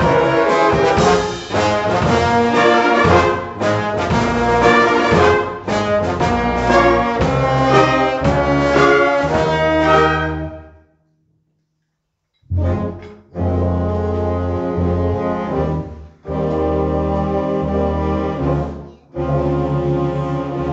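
Youth wind band playing, brass and woodwinds together. About halfway through the music fades out and there is a silent pause of about a second and a half, then the band comes back in with a lower, darker passage in short phrases.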